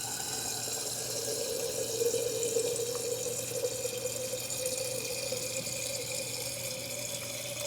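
Kitchen tap running steadily into a glass mason jar, filling it with water.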